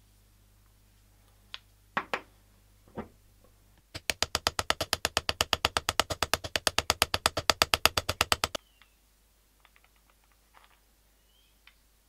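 A small hammer knocks a couple of times, then taps rapidly and evenly, about nine light metal strikes a second for four and a half seconds. It is peening over the pin end that holds the coffee grinder's wooden handle knob on its iron crank arm.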